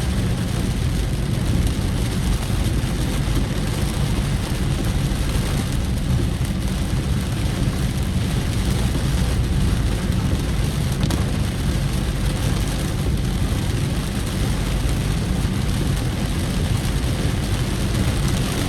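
Steady engine hum and road noise of a vehicle travelling along a road, with a constant low rumble and no breaks.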